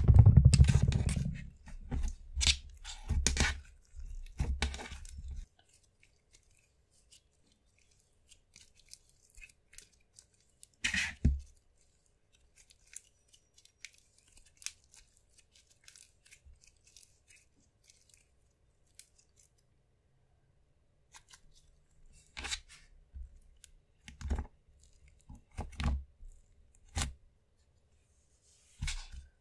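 Sticky black slime worked by hand, pressed, poked and stretched, giving sharp wet clicks and pops. They come in clusters: a dense run over the first five seconds, a short one around eleven seconds, and several more from about twenty-two seconds on, with quiet stretches between.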